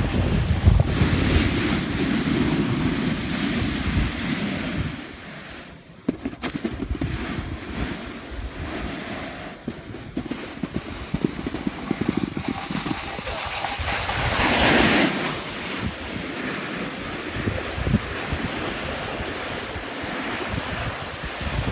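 Wind buffeting the microphone of a camera moving down a groomed ski slope, mixed with the rough rumble of sliding over snow. The noise drops away briefly about five seconds in and swells into a louder swish near fifteen seconds.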